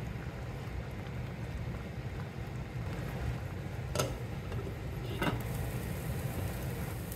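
A glass saucepan lid set down on the pan, clinking twice about a second apart, first about four seconds in, over a steady low rumble.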